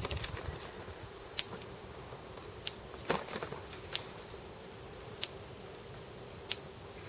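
Faint sharp clicks, about one every second and a quarter, with a faint high-pitched chirping twice over a quiet background.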